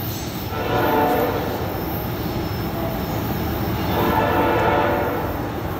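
Approaching freight train's locomotive horn sounding two long blasts of a few pitches together, each about a second and a half, the second starting about four seconds in, over a steady low rumble.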